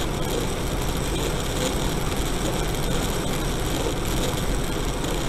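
Steady driving noise of a car as a dashcam records it: an even engine and road rumble, heaviest in the low range.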